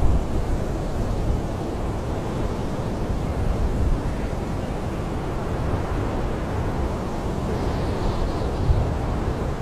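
Blizzard wind howling around a camping tent, heard from inside: a steady, dense, low rush with small swells of gusting.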